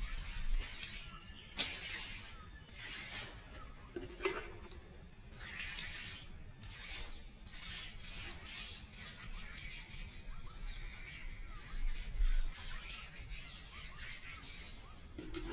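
A hand tool rubbing across wood in irregular strokes, roughly one a second, with a couple of sharper knocks.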